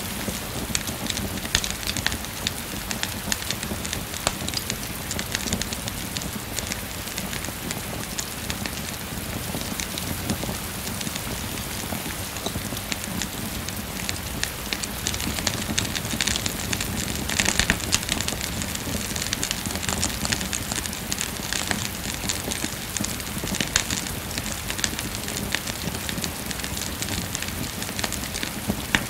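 Steady rain falling, mixed with a wood fire crackling: an even hiss of rain with many small sharp pops and clicks from the burning logs.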